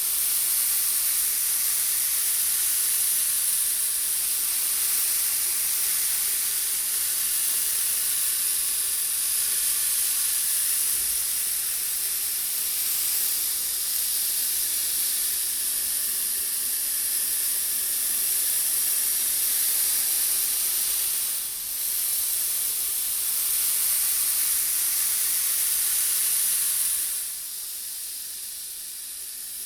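Many small steel balls rolling round and round inside a brass bowl, making a steady, high, rain-like hiss. It dips for a moment about 21 seconds in and turns quieter near the end.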